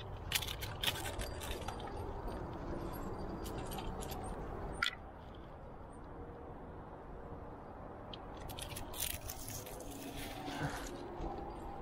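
Scattered clicks and scrapes of a climber handling gear and moving on rock. They come in a cluster at the start and another about two-thirds through, with one sharper click near the middle, over a steady low background rumble.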